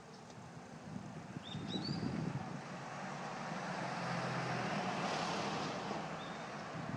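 A vehicle passing by: a broad rushing noise that builds, peaks about midway and eases off. A pair of short, high rising bird chirps sounds about one and a half seconds in, and one faint chirp near the end.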